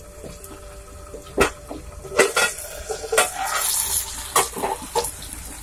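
A steel plate used as a lid is lifted off a metal cooking pan with a cloth, making about half a dozen sharp metal clinks and scrapes spread over a few seconds.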